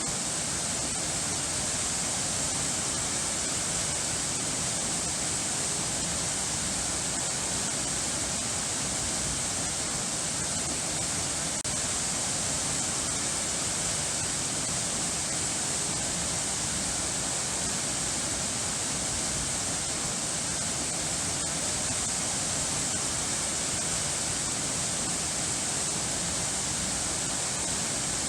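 Steady rushing of falling water, a waterfall or fast stream, even and unbroken, with a bright hiss on top.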